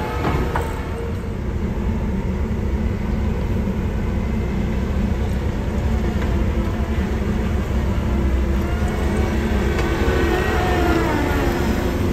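Compact track loader diesel engines running steadily under load as the loaders push and grade dirt, with the engine note shifting up and down in the last few seconds.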